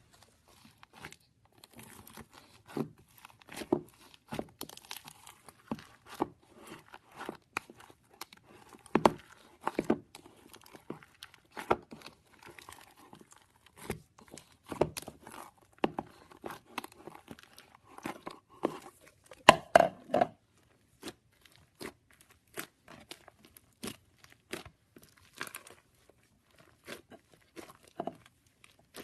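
Slime being squeezed and pressed by hands: irregular sticky pops, crackles and tearing sounds, with a louder run of pops about two-thirds of the way through.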